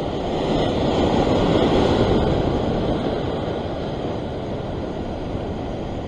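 Ocean swell surging and washing over the rocks below, a steady rushing that swells about a second in and then slowly eases.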